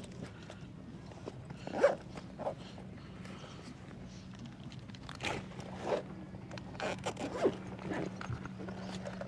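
Fishing gear being handled and rummaged through: a string of short rustles and scrapes, like a zipper or bag being worked, over a faint steady hum.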